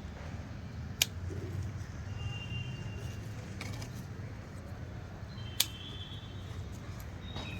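Two sharp snips of a cutting tool through flower stems, about four and a half seconds apart, over a steady low rumble, with faint high thin tones in between.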